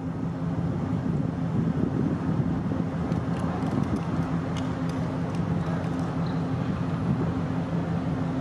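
A running engine holds a steady low hum at a constant pitch over a continuous outdoor rumble, with a few faint ticks in the middle.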